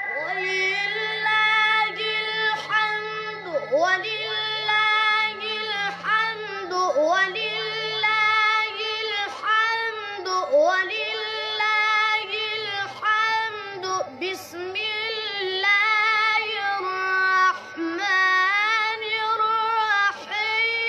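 A boy reciting the Quran in the melodic mujawwad style. His high voice holds long notes and winds through ornamented runs, in long phrases with brief breaks.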